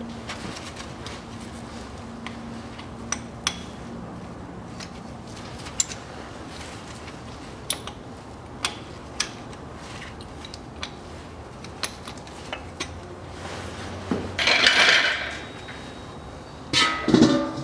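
Scattered light metallic clicks and clinks of a wrench working the drain plug on a Land Rover Discovery 3's front differential. Near the end come two louder metal clatters as a metal drain basin is set down under the axle.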